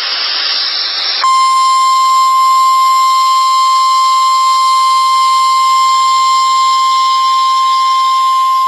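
Radio static hiss for about a second, then the NOAA Weather Radio 1050 Hz warning alarm tone starts: one steady, unbroken high tone. It is the attention signal that precedes a new warning message, here a severe thunderstorm warning.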